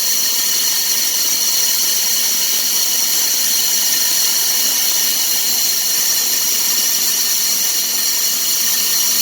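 Grain vacuum running steadily as it pulls shelled corn out of the bin: a loud, even hiss with a high whine.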